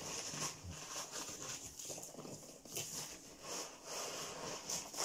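Beer bottles and packing material being handled in a cardboard box: faint, irregular rustling with light knocks.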